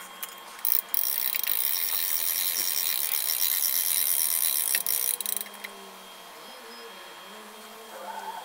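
Hand-crank winch of a Sky Hook lifting crane being wound to hoist a heavy lathe chuck: a rapid, even clicking that starts about half a second in and stops abruptly about five seconds later.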